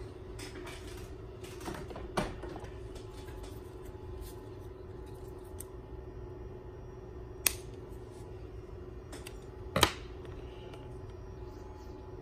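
Small clicks and handling noises from working thin hookup wire with fingers and wire cutters, with three sharp snaps, one about two seconds in and two louder ones later, over a steady low hum.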